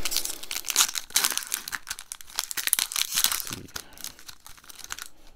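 Foil wrapper of a Magic: The Gathering Dominaria booster pack crinkling as it is torn open and the cards are slid out, a dense crackle for about three and a half seconds that then thins to a few crinkles.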